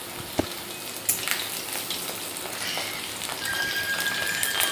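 Chicken pakoras deep-frying in hot oil in a steel wok: a steady sizzle full of small crackles, with a couple of sharper clicks in the first second or so.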